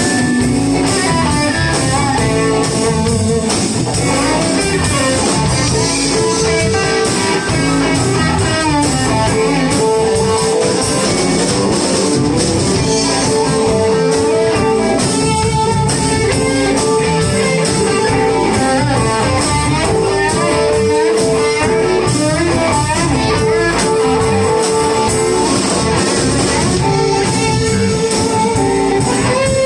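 Live blues band playing an instrumental passage with no vocals, electric guitar prominent over drums and bass, with some held, bending lead notes.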